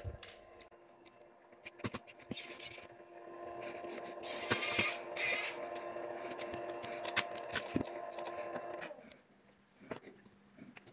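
Small electric precision screwdriver running steadily for about six seconds as it backs out the screw holding a laptop's Wi-Fi card, then stopping. Light clicks of small parts being handled come before and after.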